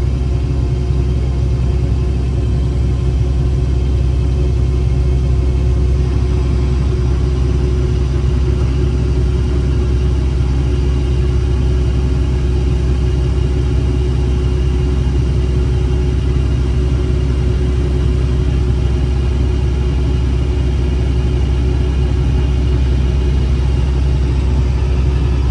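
Combine harvester's diesel engine running steadily: a loud, unbroken low rumble with a constant hum, holding at one speed throughout.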